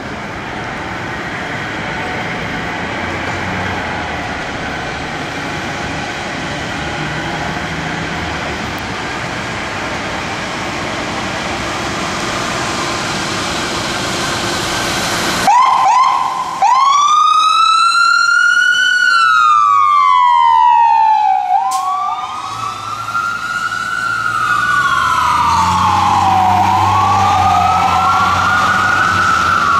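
Fire engine responding with its siren on: a steady rush of engine and road noise for the first half, then about halfway through the siren starts abruptly and wails in slow, repeated rising-and-falling sweeps. It is the loudest sound, with sweeps overlapping near the end and the truck's engine running underneath.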